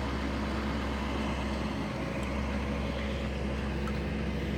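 A vehicle engine idling steadily: an even low hum that does not change.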